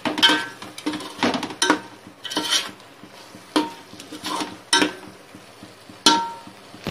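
A metal spoon scraping and knocking against a metal pot as thick curry masala is stirred and fried (bhuna). There are about nine irregular strokes, each with a short metallic ring; the loudest come near the start and about six seconds in.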